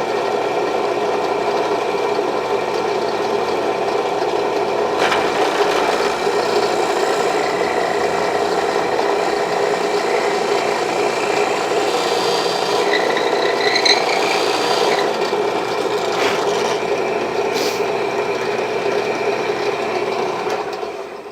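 Electric drill running steadily, its bit cutting and grinding into wood as a hole is widened into an oval. The motor winds down and stops near the end.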